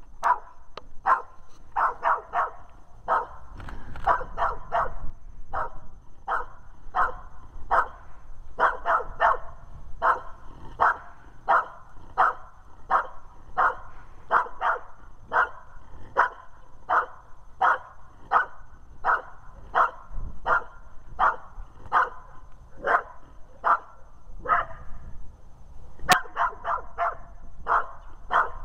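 Red heeler (Australian cattle dog) barking steadily at a sleeved helper in the blind, a sharp bark about every half second: the hold-and-bark of a Schutzhund protection routine.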